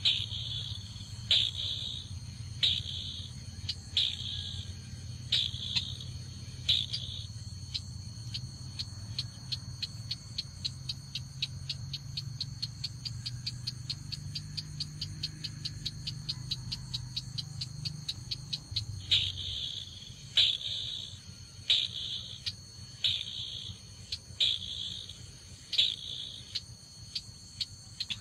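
Call of the red-eyed 'chàng nghịch', a crake, played as a trapping lure: a fast, even run of ticking notes. Louder harsh paired notes come about every second and a half, at first and again from about two-thirds through. Steady insect trilling runs underneath.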